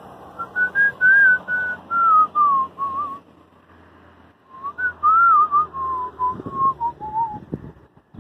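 A person whistling a tune in two phrases with a short pause between them, each phrase stepping downward in pitch.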